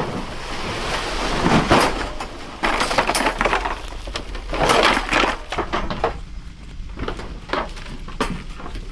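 Plastic goose decoys and their cloth bags being handled and unloaded from a trailer: irregular rustling and clattering over a steady low hum.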